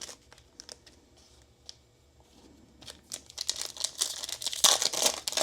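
A few faint clicks, then from about three seconds in the plastic wrapper of a trading-card pack crinkling in quick bursts as it is opened.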